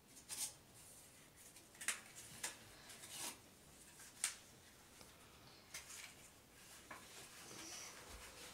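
Homemade wooden folding step-cane being folded up by hand: scattered light clicks and knocks of wooden slats, the strongest about two and four seconds in.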